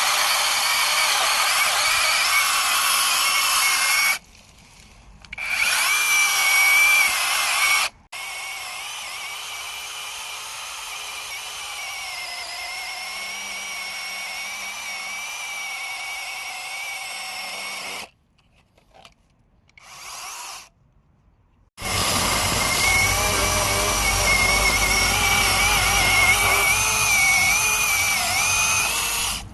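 Battery-powered 6-inch mini chainsaw running with a high electric whine as it cuts into a 10-inch tree trunk. The saw stops and starts again several times, with a quieter stretch of running in the middle and a few seconds of near silence before it runs loudly again.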